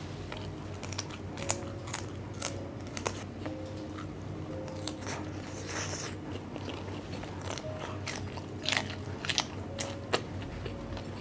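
Close-miked mouth sounds of a person biting and chewing crunchy food, with sharp crisp crunches scattered irregularly, a few more bunched together near the end.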